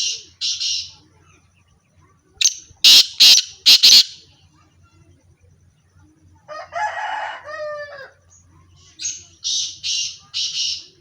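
Teetar (partridges/francolins) calling: three loud bouts of four harsh, rasping notes, at the start, about two and a half seconds in, and near the end. Between them, around the middle, comes a different call of short falling notes.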